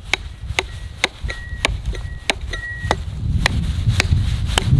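Small stainless-steel camping hatchet making quick, light chopping strokes into a stick of ash on a stump block: sharp knocks, about three a second. A low rumble comes in about three seconds in.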